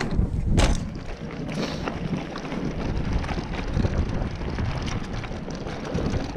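Mountain bike riding fast down a dirt forest trail, heard from a handlebar camera: wind buffeting the microphone over the rumble of tyres on dirt and dry leaves, with scattered sharp clicks and rattles from the bike.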